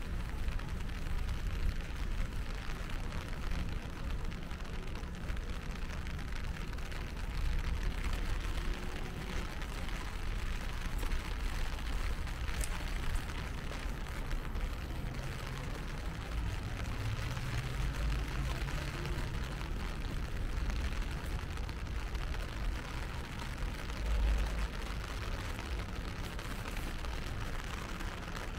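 Rainy city street ambience: a steady low rumble of traffic under the hiss of rain, with a vehicle engine passing about fifteen to twenty seconds in.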